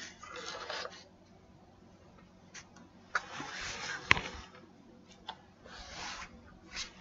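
Faint rubbing and scraping handling noises on the desk, with a few sharp clicks, the sharpest about four seconds in, as a computer mouse is moved and clicked.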